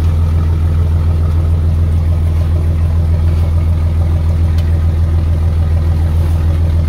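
Fishing boat's engine running steadily: a loud, constant low drone.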